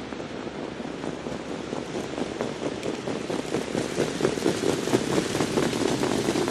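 Track sound of a field of trotters pulling sulkies: a steady rushing noise with a dense patter of hoofbeats, growing louder.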